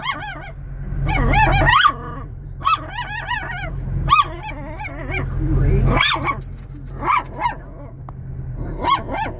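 Small long-haired terrier-type dog barking and yipping in quick high-pitched runs at the windscreen wipers, over the steady low hum of the moving car.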